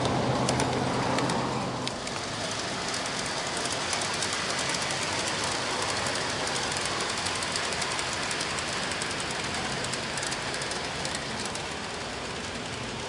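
G-scale model trains running on garden-railway track. In the first two seconds a close-passing model train's motor hums loudly and then fades; after that the metal wheels rumble steadily on the rails, with many small rapid clicks as the freight train rolls by.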